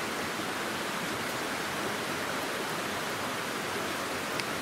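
Steady rushing of a nearby stream flowing over rocks, with a single short click near the end.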